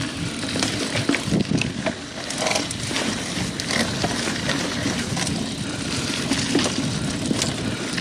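A 2000 Klein Attitude Race mountain bike rolling over a rough dirt and rock trail: tyres crunching on the ground, with frequent small clicks and rattles from the bike.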